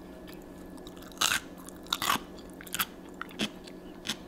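Close-up crunching of a raw cucumber piece being bitten and chewed: a loud crunch about a second in and another around two seconds, then lighter, irregular crunches as it is chewed.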